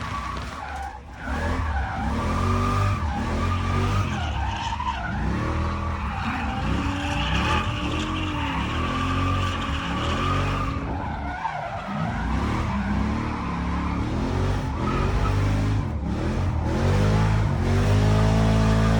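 A 6.0 LS V8 in a race-prepped BMW 335i, driven hard on track: the engine revs rise and fall repeatedly through gear changes and corners. The tyres squeal, strongest around the middle.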